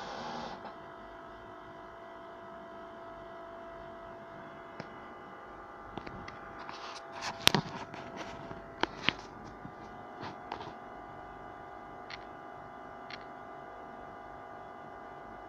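A short breath blown into the jar at the very start, then a steady electrical hum with several tones underneath. Scattered clicks and knocks from handling come in the middle, the loudest about seven and a half seconds in.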